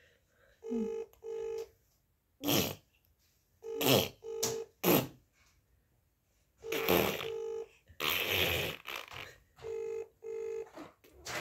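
Outgoing call ringback tone from a phone's speaker: a double beep repeating about every three seconds, four times, as the call rings unanswered. A few short noisy bursts fall between the rings, the longest about eight seconds in.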